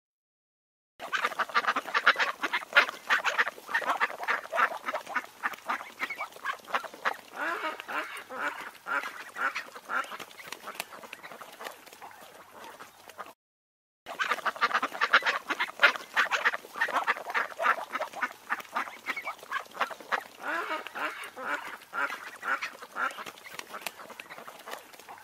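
A flock of mallard ducks quacking in a rapid, overlapping chatter. It starts about a second in, breaks off briefly around the middle, then starts again.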